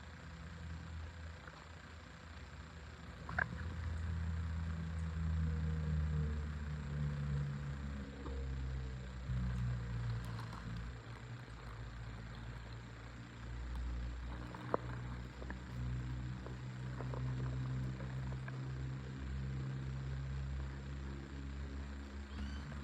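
A motor vehicle's engine running, a low drone whose pitch slowly rises and falls, with a couple of sharp clicks.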